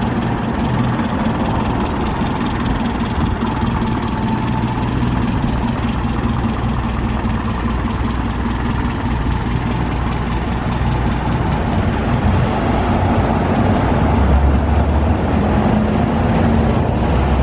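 1935 Fiat Balilla Spyder's small four-cylinder engine idling steadily. Its low rumble grows a little stronger about fourteen seconds in.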